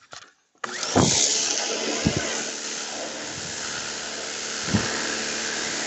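SunJoe SPX-4004 Max electric pressure washer starting to spray through a 15-degree nozzle: about half a second in, a steady hiss of the water jet striking a car's bodywork comes on suddenly over the hum of the electric motor and pump.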